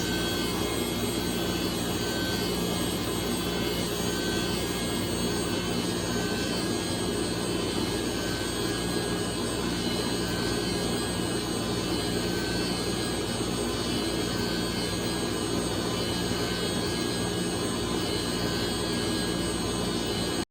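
Sawmill machinery running steadily: a continuous, even machine noise with a constant low hum throughout.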